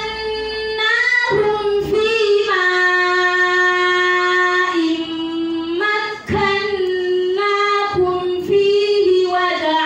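A woman reciting the Qur'an in Arabic in a melodic, chanted tajweed style, drawing out long held notes. One note is held steady for about two seconds in the middle and then steps down in pitch, before a brief breath-break about six seconds in.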